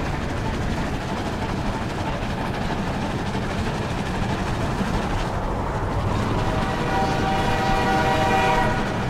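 Train running on the rails with a steady low noise, its horn sounding one long held chord over the last few seconds.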